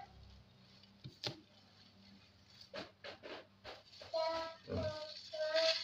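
Handling noise from an air rifle and its plastic wrapping: a couple of sharp clicks, then a short run of light clicks and rustles. A voice comes in the background from about four seconds in.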